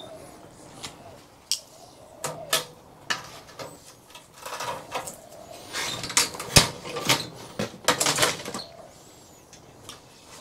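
Irregular clinks and knocks of metal parts and hand tools being handled while a display monitor is stripped for scrap, with denser clatter about halfway through and again near eight seconds in.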